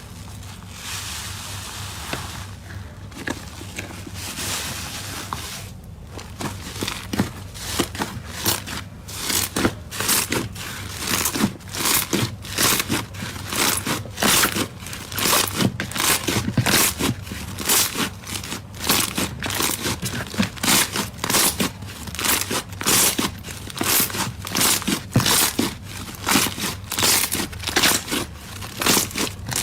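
Slime being squeezed and pressed by hand, crackling and popping at several sharp snaps a second, after a few seconds of a steady, softer hiss.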